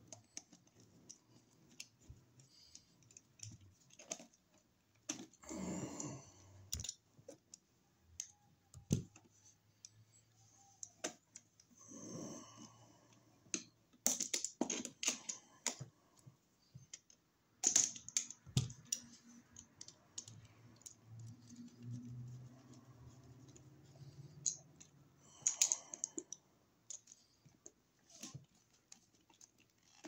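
Faint, scattered small clicks and taps of hand work on a wall receptacle: a screwdriver and stiff copper wire ends against the plastic outlet and its terminal screws as the wires are hooked on and tightened.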